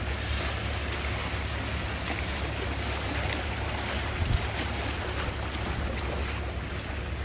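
Calm sea waves washing, with wind rumbling on the microphone and a brief low thump about four seconds in.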